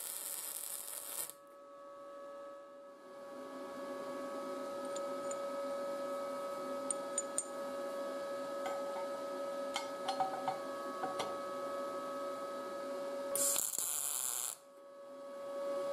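MIG welding arc crackling in two short tack-weld bursts, one at the start lasting about a second and one near the end. Between them a steady hum, with a few light clicks of steel parts being fitted together.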